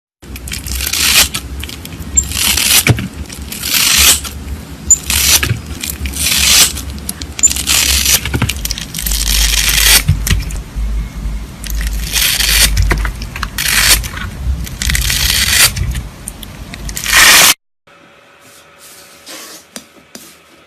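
Slime being squeezed and worked by hand, making a run of loud crackling, scraping squishes about one a second. It stops suddenly about three seconds before the end, leaving only faint clicks.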